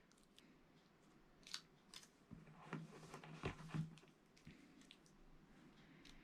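Near silence with faint scattered clicks and rustles of hands handling small items, a little busier in the middle.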